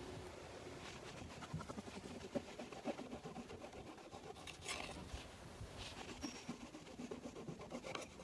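Faint scraping and small clicks from things being handled on a table, with a short high bird chirp about six seconds in.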